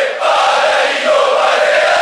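Large crowd of football ultras chanting together from a packed stand, many voices singing one line, with a short break between phrases just after the start.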